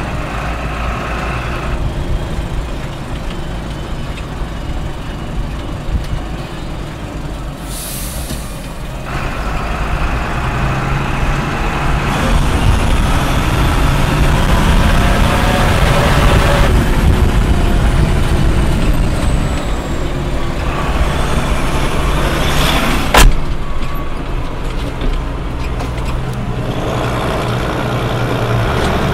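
Case CS 150 tractor engine running under load while pulling a slurry tanker, heard from inside the cab. It grows louder about a third of the way in and eases off past the middle, with a single sharp click a little later.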